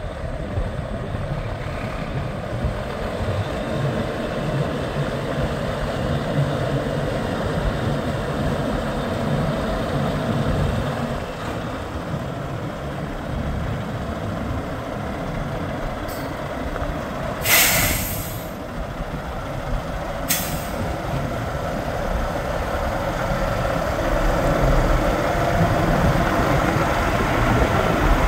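Diesel engine of a 2013 Kenworth T800 tractor truck running steadily. About two-thirds of the way through, a short sharp burst of compressed air hisses from the truck's air system, with two briefer hisses just before and after it.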